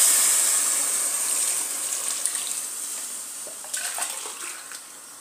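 Water poured from a cup into a hot pot of rice fried in oil and spices, hissing and then fading steadily as the pot cools. A few light knocks about four seconds in.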